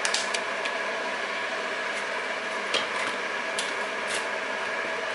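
A few light clicks and taps from a plastic pack of button mushrooms being handled, over a steady mechanical hum like a kitchen fan.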